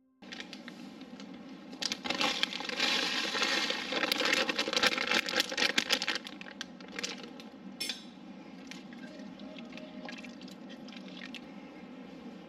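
Egg yolk and lemon juice being mixed into whipped egg whites in a bowl: a dense run of clicks and rustling, loudest from about two to six seconds in, then thinning to scattered clicks.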